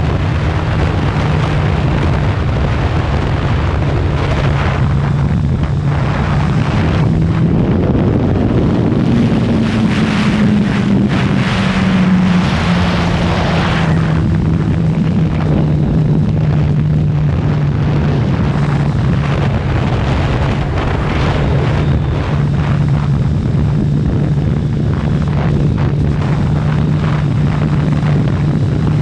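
Kawasaki ZX-14R's inline-four engine running at speed under heavy wind noise on the microphone. Partway through, the engine pitch climbs for a few seconds as it pulls harder, then drops back and holds steady.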